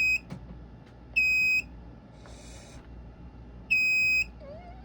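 Fire alarm sounder beeping a loud, steady high tone in an on-off pattern: one beep cuts off just as the sound begins, then half-second beeps come about a second in and about three and a half seconds in.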